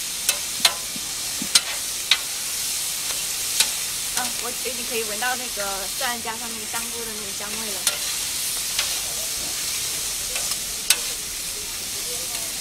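Mushrooms and peppers sizzling on a hot plancha griddle plate, with sharp clicks and scrapes of metal spatulas as the vegetables are stirred and turned.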